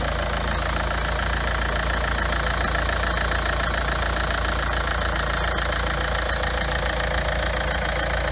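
Hyundai 2.2-litre D4HB four-cylinder common-rail turbodiesel idling steadily.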